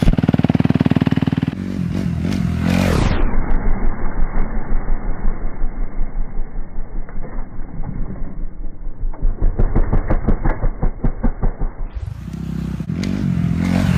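Single-cylinder four-stroke engine of a Kawasaki KX250F dirt bike in supermoto trim, revving hard and pulsing on and off the throttle while the bike is ridden through wheelies. The sound goes duller about three seconds in and brighter again near the end.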